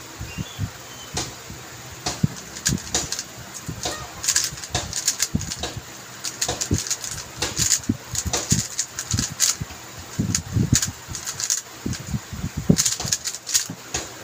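Plastic layers of a QiYi M Pro 3x3 speedcube turning by hand, a rapid clicking clatter in quick bursts of turns.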